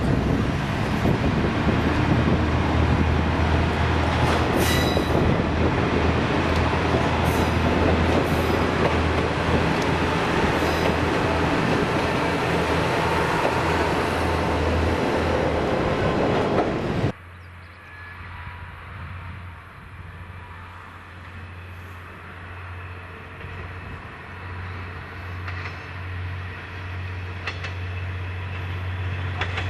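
Diesel railcar passing close by, its engine and wheels on the rails loud, with a few brief high wheel squeals. Just over halfway through the sound cuts off abruptly to a quieter scene in which a diesel railcar is heard approaching, its engine growing louder toward the end.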